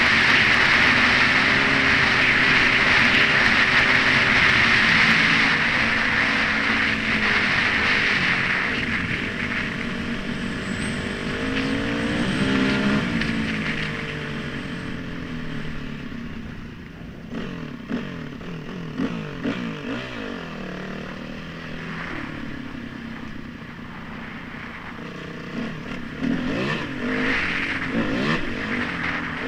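Yamaha WR250 dirt bike engine under way, its pitch rising and falling as the rider works the throttle, with heavy wind rush on the helmet microphone for the first several seconds. Scattered knocks and clatter from the rough trail come in the second half.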